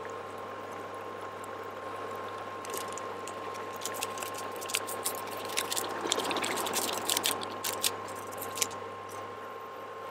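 Water boiling in a pan of instant noodles, with a steady hum under it. From about three seconds in, a run of sharp crinkles and clicks as a plastic seasoning sachet is torn open and emptied into the pan, loudest between about five and nine seconds.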